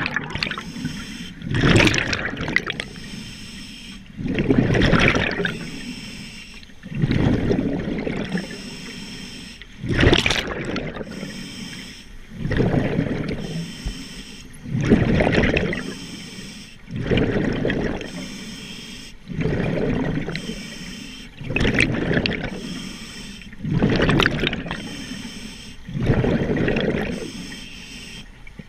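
Scuba diver breathing through a regulator underwater, each breath ending in a loud burst of exhaled bubbles that gurgles out and trails off. The breaths come in a steady rhythm, about one every two and a half seconds.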